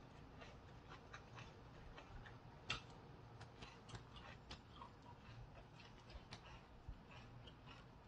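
Faint, irregular small clicks and wet smacks of chewing and mouth noises from eating fresh rice-paper rolls, with one sharper click about three seconds in.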